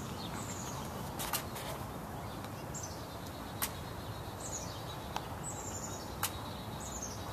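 Nerf gun foam darts being fired and hitting the glass, giving about five sharp clicks a second or more apart. High, short chirps that fall in pitch come between the clicks.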